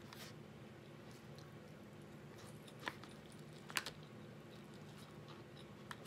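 Metal fork clicking and scraping against an aluminium foil pie tin three times, the loudest in the middle, over quiet chewing of chicken pot pie and a low steady background hum.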